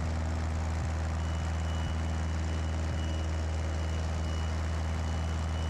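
Cessna 172B's six-cylinder Continental O-300 engine and propeller droning steadily in the climb, heard inside the cabin. A faint high whine comes in about a second in and stops near the end.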